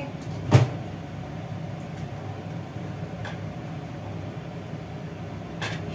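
A plastic oil bottle knocks once, sharply, as it is set down on a shelf about half a second in, followed by a couple of faint clicks. Under it runs a steady low kitchen hum.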